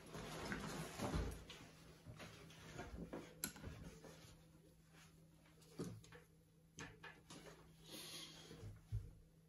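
Faint scattered taps, knocks and scrapes of an oil painter's brushes and palette being handled at a wooden pochade box, with a few sharper clicks and a soft thud near the end.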